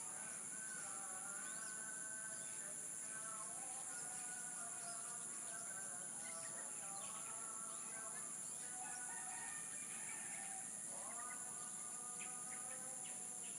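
Outdoor dawn ambience: a steady high insect drone, with roosters crowing in long held calls, one rising into a new crow about 11 seconds in, and small birds chirping.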